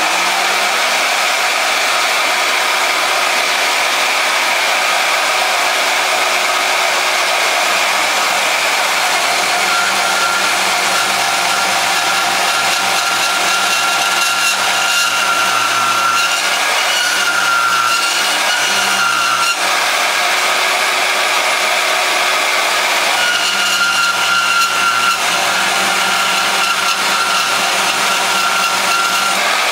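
Harbor Freight portable band saw running steadily under power and cutting steel, with a high whine that comes and goes from about ten seconds in.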